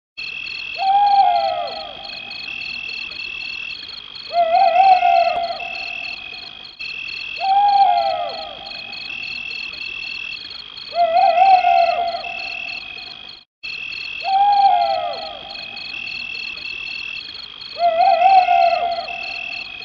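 A short nature-sound loop played three times: a lower animal call with a falling sweep about every three and a half seconds, over a steady, pulsing high-pitched chirr.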